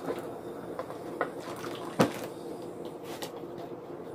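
Thick, foamy gelatin mixture pouring from a plastic bowl into an aluminium foil pan while a plastic spatula scrapes it out of the bowl, with a sharp tap about two seconds in.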